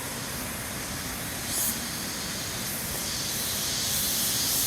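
Steady rush of water falling at a waterfall, growing slowly louder, with a high hiss that swells and fades briefly a couple of times.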